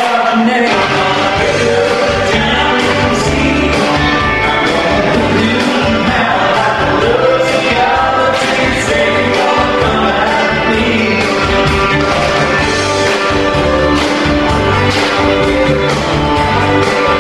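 Upbeat country rock song with a lead singer over a band and a steady beat.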